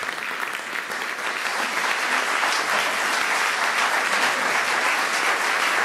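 Concert audience applauding, a dense, even clapping that grows a little louder over the first couple of seconds and then holds steady.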